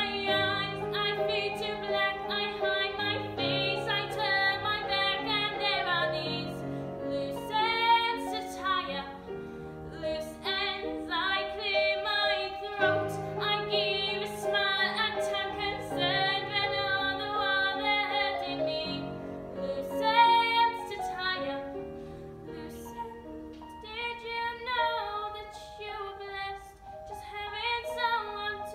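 A female voice singing a slow musical-theatre song, with sustained accompaniment underneath.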